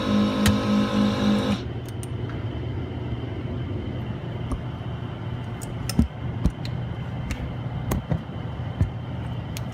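An electric machine's motor runs with a loud, pulsing hum and shuts off about a second and a half in. After that a steady low hum continues, with a few light clicks and taps.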